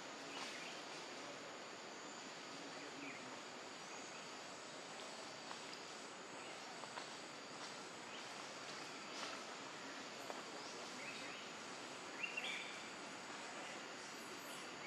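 Forest ambience: a steady insect drone with a thin high whine, and a few short chirps scattered through, the loudest about twelve seconds in.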